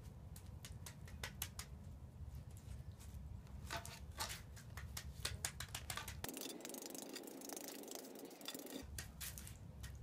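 Hand float pressing and tamping loose gravel into wet concrete: faint, irregular clicks and scrapes of the stones against the float and each other.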